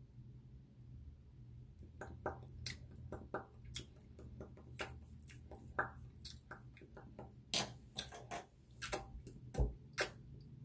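Lips smacking and pressing together over and over, a quick irregular run of small wet clicks and pops starting about two seconds in, as freshly applied lip colour is worked and blended.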